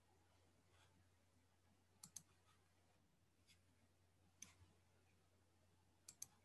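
Near silence with a low steady hum, broken by faint computer mouse clicks: a quick pair about two seconds in, single clicks around three and a half and four and a half seconds, and another quick pair near the end.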